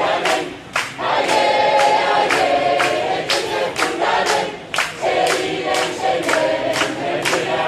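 A large crowd of men and women singing a Kurdish song together in unison, with hands clapping on the beat about twice a second.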